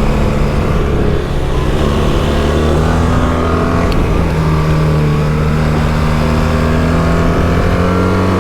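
BMW R1300GS boxer-twin engine pulling hard at track speed, its pitch holding then climbing slowly through the second half, with a steady rush of wind over it.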